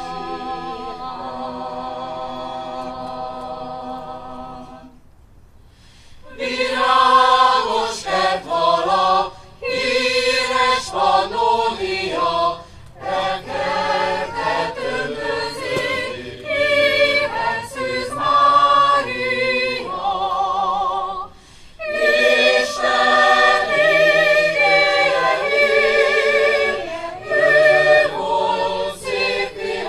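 A choir singing: a held chord fades out about five seconds in, and after a short pause a new phrase begins, with another brief break about two-thirds of the way through.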